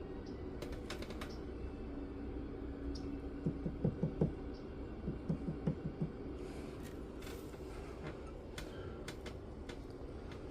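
Light taps of a rubber mallet on a silver box chain, flattening links that stick up beside a fresh solder joint: two quick runs of about five soft, dull taps each near the middle, with faint small clicks before and after.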